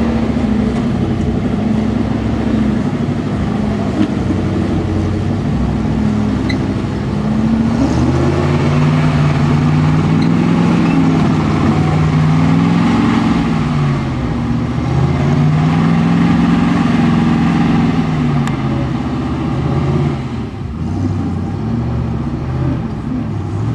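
Rock buggy's engine revving under load as it crawls up steep slickrock, its pitch climbing and falling in long surges and easing off near the end.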